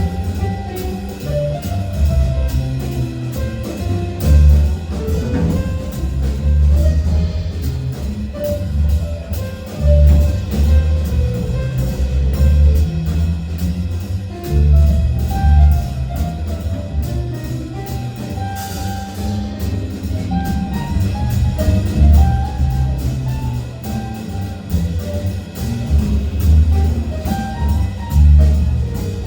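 Band playing an instrumental passage with no vocals: drum kit and a pulsing bass line under a moving melody, in a jazzy style.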